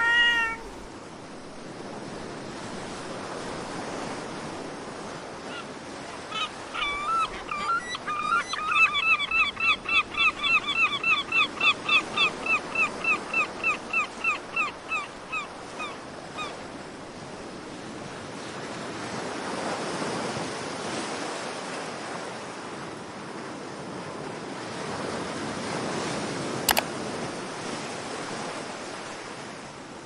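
A gull calls a rapid series of repeated yelping notes, about three a second, for around ten seconds, fading out near the end. It calls over a steady rushing background noise. A cat gives one short meow at the very start, and a single sharp click comes near the end.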